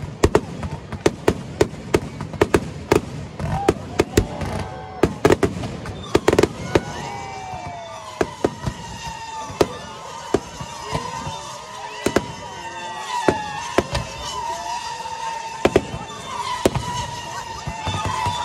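A fireworks display. For the first six seconds, shells burst in a rapid run of sharp bangs. After that, a volley of rising rockets gives gliding and held whistles, with scattered bangs between them.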